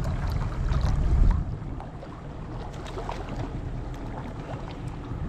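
Boat's outboard motor running, a heavy low rumble for the first second or so that then drops to a quieter steady hum.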